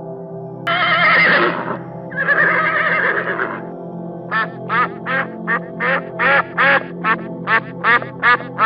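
Horse whinnying: two long quavering whinnies, then a quick run of short repeated calls, about three a second, over steady background music.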